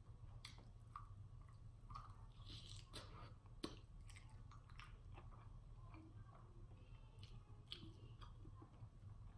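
Faint close-up chewing and biting on a sauced bone-in chicken wing: soft, irregular wet mouth clicks and smacks.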